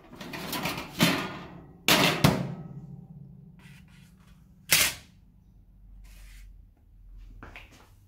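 Metal clatter and sharp knocks as a perforated metal oven tray carrying a sprocket carrier, just heated to 150 °C, is handled out of the oven and set down on a hardboard-covered bench. There are a few knocks in the first two and a half seconds, then one more knock near the five-second mark.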